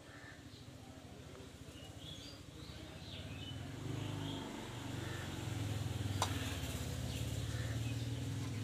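Small birds chirping in the background, while a low rumble with a faint hum swells from about three seconds in and becomes the loudest sound; a single sharp click a little after six seconds.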